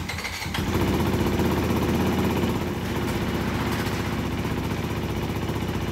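Honda CRF250RX single-cylinder four-stroke engine starting up, running a little faster at first and then settling to a steady idle about two and a half seconds in. It is being run after a fresh oil refill to circulate the oil before the level is rechecked.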